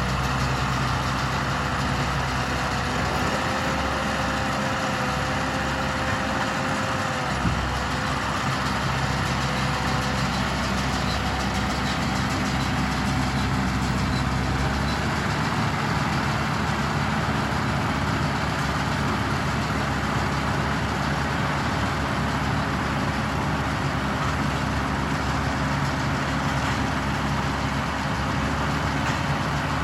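Valtra 6300 tractor's diesel engine running steadily while it powers a Welger RP12 round baler, with a faint whine that wavers in pitch over the first ten seconds or so.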